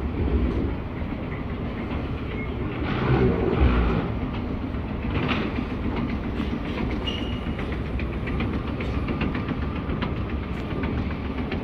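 Steady rumble and rattling of a moving vehicle heard from inside, with a run of small clicks throughout and a brief louder surge about three seconds in.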